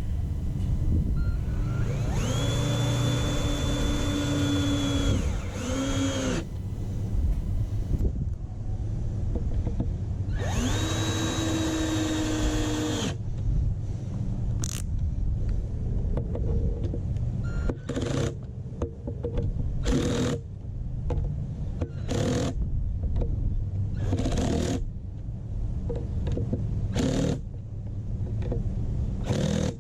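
Power drill driving screws through a pool skimmer faceplate into the pool wall to seal it: two steady motor whines a few seconds long that wind down as each screw seats, then a string of short trigger bursts snugging the screws.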